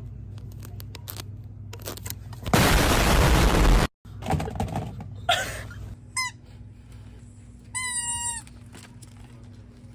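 Explosion sound effect: a sudden loud blast about two and a half seconds in, lasting just over a second and cutting off abruptly. Two short high-pitched squeaks follow later.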